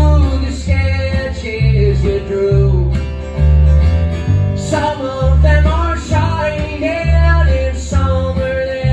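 Acoustic string band playing country-bluegrass live: fiddle, strummed acoustic guitar and plucked upright bass keeping a steady bass line, with a voice singing over it.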